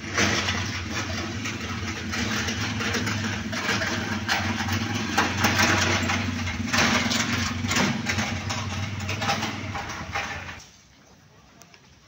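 An engine running steadily at an even pitch, then cutting off abruptly near the end.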